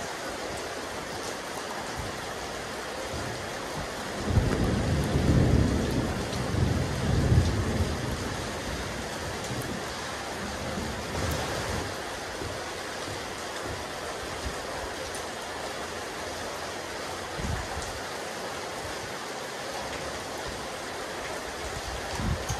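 Steady rain falling on a rooftop terrace, an even hiss of drops. About four seconds in a louder low rumble rises and lasts a few seconds before fading back under the rain.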